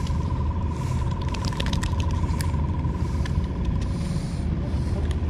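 Steady low machine rumble with a thin steady whine above it, and a few light clicks in the first couple of seconds as a hook is worked out of a small fish.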